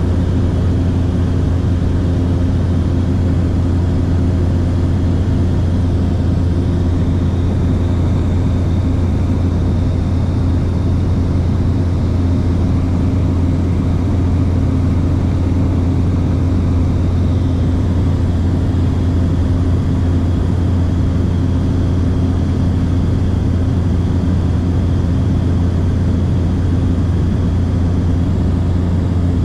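Steady engine and propeller drone of a small fixed-wing aircraft heard from inside the cabin in level cruise, a deep even hum with a few faint steady tones above it.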